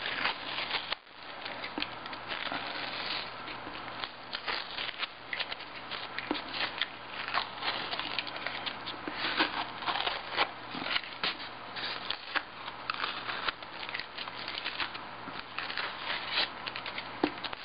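Masking tape being peeled off the glass edges of a display case by hand: a long run of irregular crackling rips and rustles.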